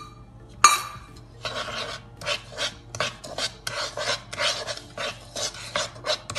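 A wooden spatula scraping and stirring tikhur (arrowroot-type starch) through ghee in a kadhai as it is lightly roasted, in quick rasping strokes about three a second. Just under a second in, a single ringing metal clink.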